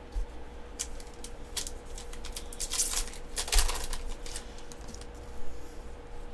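Yu-Gi-Oh trading cards being flipped and slid through by hand from a freshly opened booster pack: irregular light clicks and a few brief swishes of card against card.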